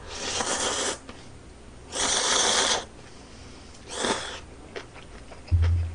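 A person slurping noodles with loud sucking slurps: a long one of about a second, a second just under a second, and a shorter one about four seconds in, with the bowl held to the mouth. A short low thump near the end.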